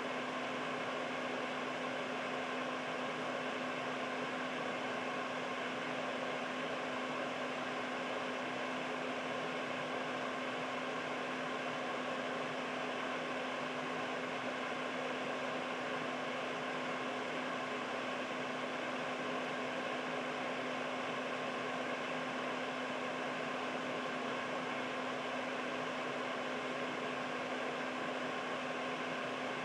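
Air purifier's fan running steadily: an even rush of air with a low, steady motor hum.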